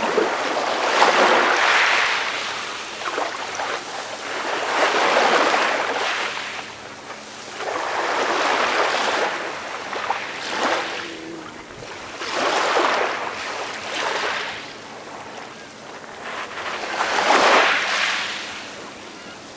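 Calm ocean waves washing onto a shore, each wave swelling and falling away every three to four seconds.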